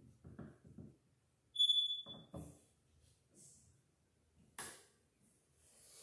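Screwdriver work on a wall light switch: quiet scraping turns, then a single metallic clink that rings briefly about one and a half seconds in, a couple of small clicks, and a sharp tap a little past the middle. Clothing and handling rustle near the end.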